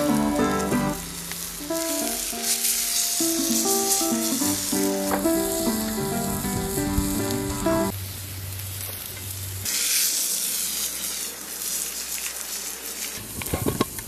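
Food frying in a pan, a steady sizzle. Background music plays over it through roughly the first half and then stops.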